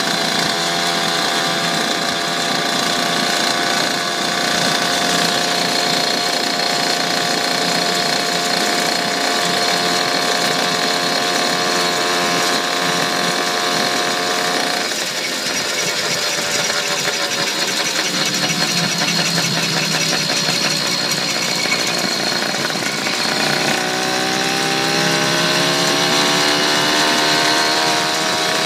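Small motorised-bicycle engine running while the bike is ridden. Its pitch holds steady for about the first half, shifts and wavers after that, and climbs again a few seconds before the end as the rider speeds up.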